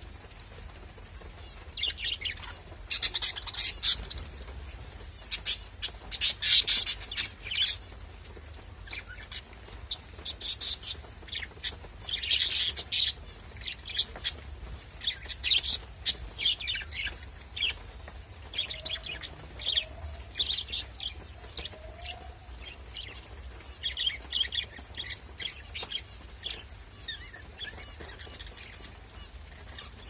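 Several budgerigars chirping and chattering in quick, short, sharp calls, busiest in the first half and sparser later on.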